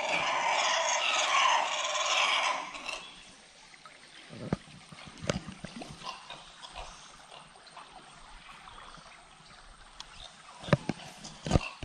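A loud, harsh animal call from the forest canopy that stops about three seconds in. Afterwards only faint water and a few light knocks, the loudest two near the end.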